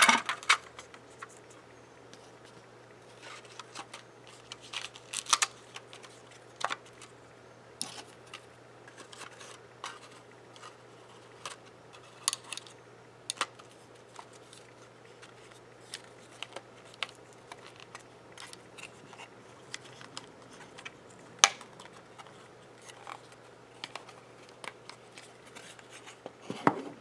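Small wooden picture frame being handled and taken apart: scattered light clicks, taps and rustles of the clear plastic pane, backing board and photo being lifted out and fitted back, with one sharp tap a little past the middle.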